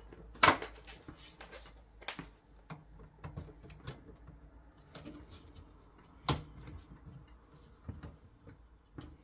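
Scattered clicks and knocks of hands working inside an open PC case while plugging the monitor cable into the graphics card's connector. The sharpest knock comes about half a second in and another a little after six seconds.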